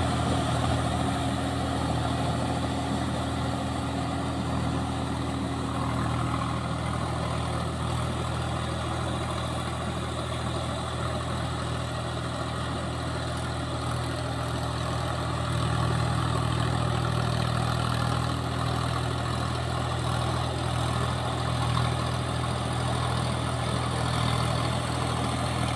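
Sonalika 47 RX 4WD tractor's diesel engine running steadily under load, driving a rotavator that churns flooded paddy mud. The engine grows louder about two-thirds of the way through.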